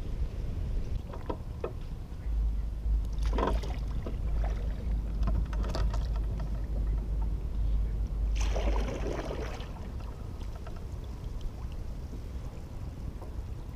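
Wind buffeting the microphone with a heavy low rumble, heard from a kayak on the water. There are a few light knocks, and a brief loud rushing noise about eight and a half seconds in.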